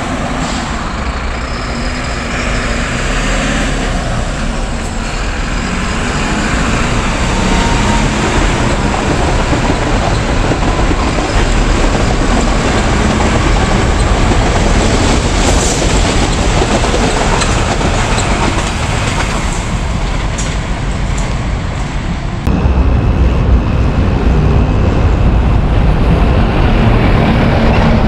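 Bus running in traffic: a steady engine and road rumble with hiss. About 22 seconds in it cuts abruptly to a louder recording with more low rumble.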